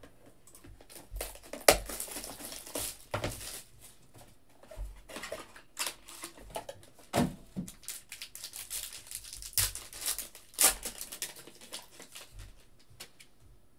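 Plastic shrink wrap crinkling and tearing as it is stripped off a box of trading cards, then a foil card pack crinkling as it is handled and opened. Irregular crackles throughout, with a few sharp snaps.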